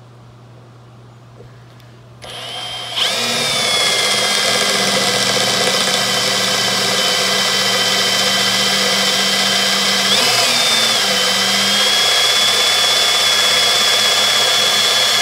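18-volt cordless drill starting up about two seconds in and then running at a steady high whine as it bores an 11/64-inch pilot hole into the truck's flatbed. The pitch wobbles briefly about ten seconds in.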